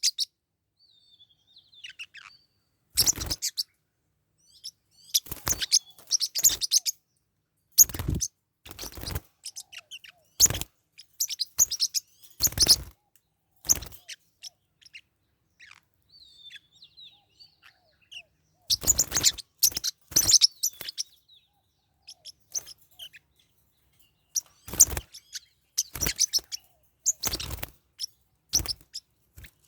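Forpus parrotlets chirping in short, harsh, irregular bursts, with faint thin high whistles in between.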